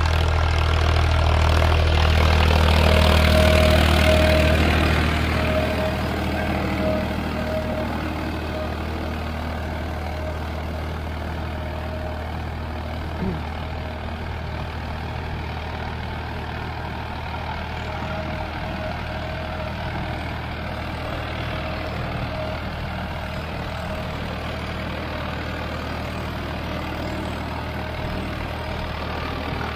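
Farmtrac 60 T20 PowerMaxx tractor's diesel engine running steadily under load while pulling an 18-disc harrow through tilled soil, a little louder in the first few seconds.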